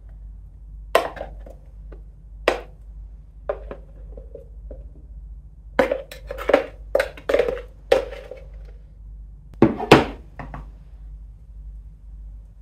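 Wooden spoon knocking and scraping against a plastic Vitamix blender jar and a coconut-shell bowl as very thick frozen banana-mango smoothie is spooned out, with a run of scrapes in the middle and two louder knocks about ten seconds in.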